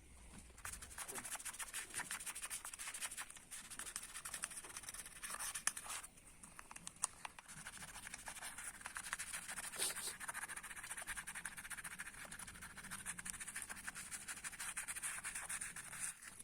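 Rapid, continuous scratching strokes of a metal bicycle part being scrubbed by hand with an abrasive, with a brief pause about six seconds in.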